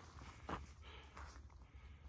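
Faint footsteps crunching on dry fallen leaves, with a short click about half a second in and a low wind rumble on the microphone.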